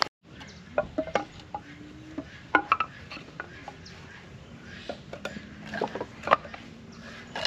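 Firewood logs knocking and clattering against one another as they are pulled off a woodpile: a string of sharp, irregular wooden knocks.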